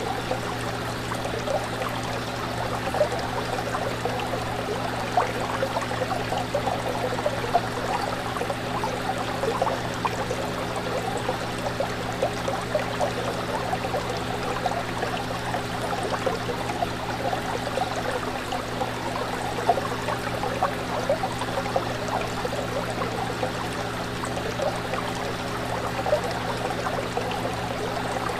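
Fish tank water bubbling and trickling continuously, with many small splashes, over the steady low hum of the aquarium's pump or filter.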